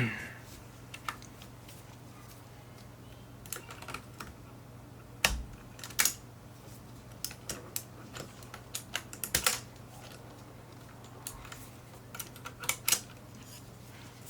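Irregular plastic clicks and clacks from a mechanical keyboard with Cherry MX switches as its keycaps and spacebar are worked off and the keys are pressed, with a few sharper, louder clacks among the lighter ticks.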